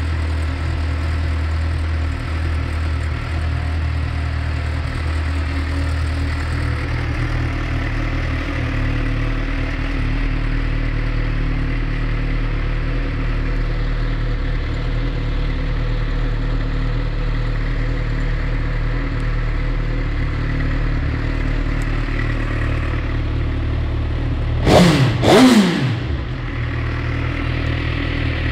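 Suzuki GSX-R1000 inline-four motorcycle engine idling steadily, with two quick throttle blips near the end, the loudest moment.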